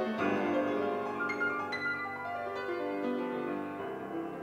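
Solo piano background music, a slow melody of held notes.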